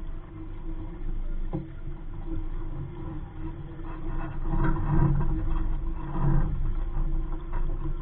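Muffled wind and water noise around a small sailboat in a light breeze, louder and more uneven for a couple of seconds midway, with a few faint knocks.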